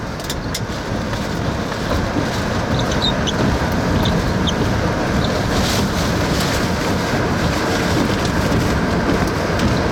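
Steady rushing wind noise from strong winds near a tornado, with a few faint high ticks about three to four seconds in.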